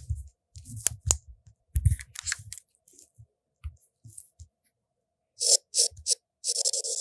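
Samsung S Pen writing sound effect: a scratchy, pencil-like scribble from the phone as the stylus writes, three short strokes about five seconds in, then a longer stroke. Before that, scattered light taps and clicks.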